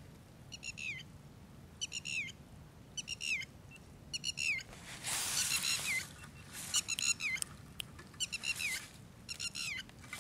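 A bird calling over and over with short, high notes that slide downward, about one or two a second. A brief rush of noise comes about halfway through.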